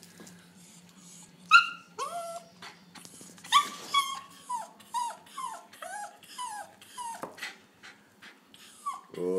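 Jack Russell terrier whining: short, high whimpers that each slide down in pitch, a quick run of them about two a second in the middle. The dog is begging for a cooked chicken.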